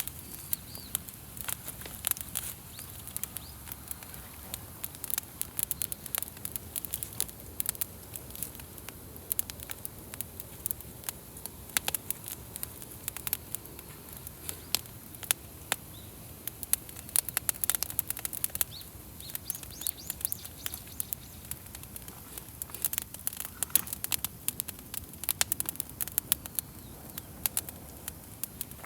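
Wood campfire crackling, with frequent sharp pops and snaps over a low steady rush of flames.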